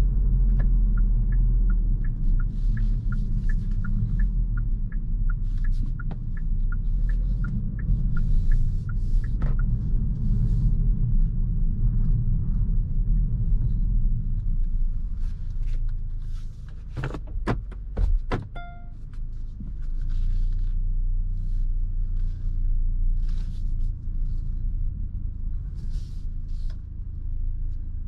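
Low rumble of a Kia Stinger's 2.5-litre turbocharged four-cylinder driving slowly, heard from inside the cabin. A steady clicking of the turn signal, about three clicks a second, lasts for roughly the first nine seconds. A few knocks and a short dashboard chime come about two thirds of the way through, after which the rumble runs lower.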